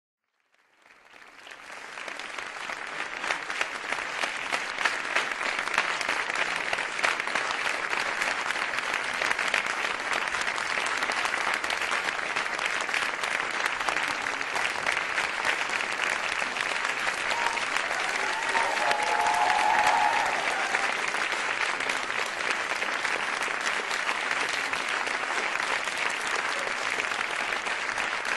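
Audience applauding steadily, fading in from silence over the first couple of seconds.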